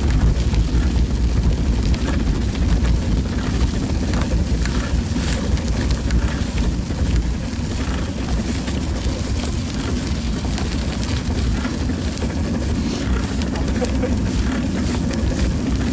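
Wind rumbling steadily over an action camera's microphone on a moving bicycle, with tyre noise on the icy path and scattered small clicks and rattles.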